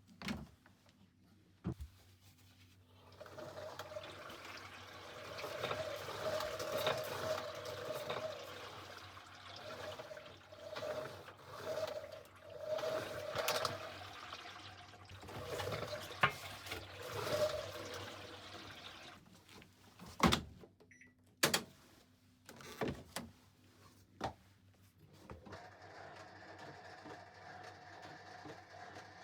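Panasonic VX-series drum washing machine turning its drum, with a recurring creaking scrape as the drum rubs against the spin-tub cover, a fault that has worn a hole in the cover. Several sharp clicks follow, then a steadier low hum.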